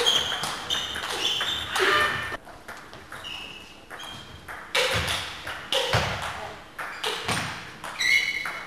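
Table tennis play: a celluloid ball being struck by bats and bouncing on the table, sharp clicks in quick, uneven succession, with a couple of short squeaks.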